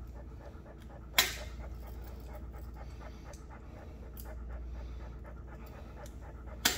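Cane Corso panting steadily and rapidly, with two sharp snips of nail clippers cutting through its toenails, about a second in and near the end.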